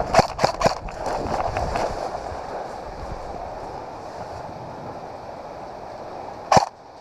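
A player running over the ground: quick sharp footfalls in the first two seconds over a steady rushing noise that slowly fades, then a single sharp crack near the end.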